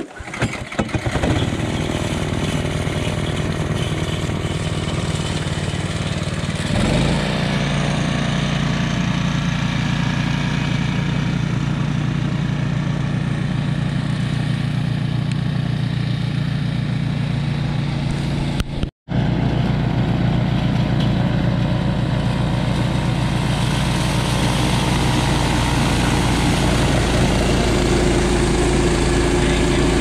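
Honda HSS928 two-stage snowblower running steadily, its single-cylinder Honda engine driving the auger and impeller through heavy, wet slush. The engine note shifts about seven seconds in, and the sound cuts out for an instant about two-thirds of the way through.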